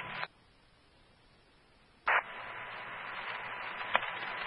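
Fire-department radio scanner static between transmissions. The hiss cuts off a moment in, the channel is nearly silent for about two seconds, then a click as a radio keys up and the hiss returns with a faint steady tone. Another click comes near the end.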